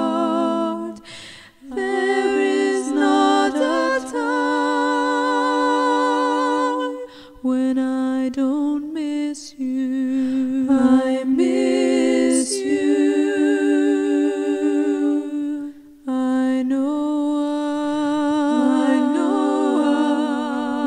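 Wordless unaccompanied singing: a voice holding long, wavering notes in phrases, with short breaks between them.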